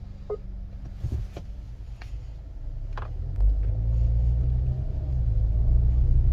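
Low in-cabin rumble of a KGM Torres with a 1.5-litre turbo petrol engine pulling away, growing clearly louder about three seconds in. A few light clicks come before it.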